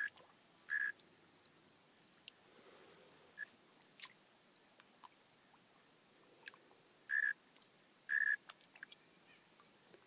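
Steady high-pitched chorus of late-summer insects such as crickets, broken by four short calls at one pitch, two near the start and two about seven and eight seconds in, plus a few faint clicks.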